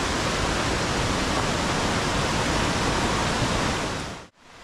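Steady rush of the Borovniščica stream in full flow, its water level running high. The sound drops away quickly near the end.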